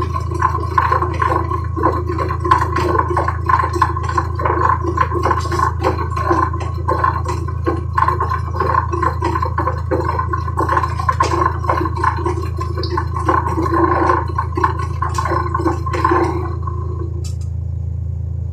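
Washing machine running under test after repair, water churning and sloshing with a steady low motor hum underneath; the churning stops about sixteen seconds in while the hum goes on.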